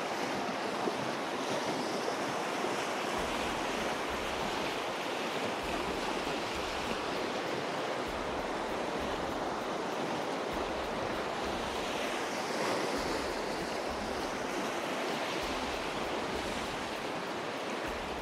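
Fast-flowing river rapids rushing steadily beneath a log footbridge.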